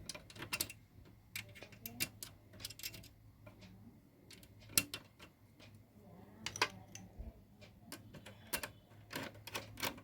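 Irregular light clicks and taps of a screwdriver and screws being handled and driven into a desktop PC's case during reassembly.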